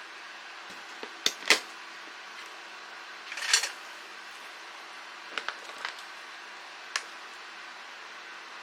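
Dishes and utensils being handled in a kitchen: a few sharp light clicks and knocks, and one short scraping burst about three and a half seconds in, over a steady faint hiss.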